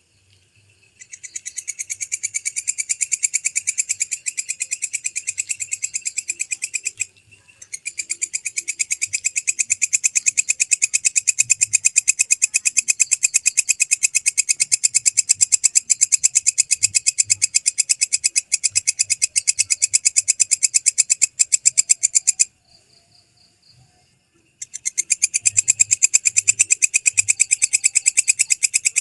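Walang kecek katydid stridulating: long trains of rapid, even, high-pitched pulses. There is a brief break about a quarter of the way through and a pause of about two seconds near three quarters through.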